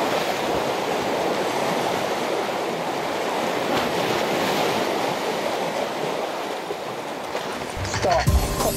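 Sea waves washing steadily against the concrete blocks of a breakwater. Near the end, music cuts in.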